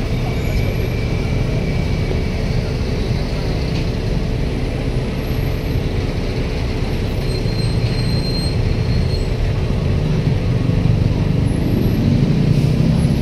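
Heavy vehicle engine running steadily, getting louder near the end.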